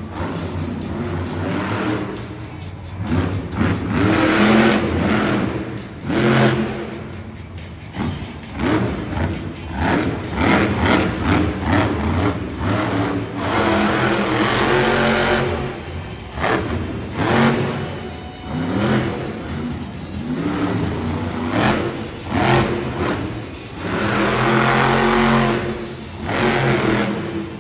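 Megalodon monster truck's supercharged engine revving in repeated bursts, the pitch climbing and dropping with each throttle blip.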